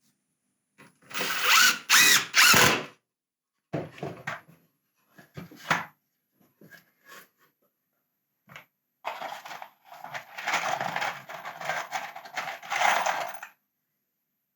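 Impact driver driving screws into wood: a loud run of about two seconds soon after the start, then a longer run of about four seconds in the second half, with a few short knocks from handling between them.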